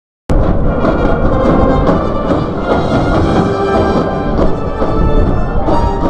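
A live orchestra playing loud, full music with repeated percussion strokes, starting abruptly a moment in after a brief gap of silence.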